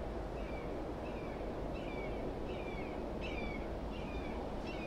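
A bird calling over and over in short falling notes, about one every 0.7 s, over a steady low outdoor rush.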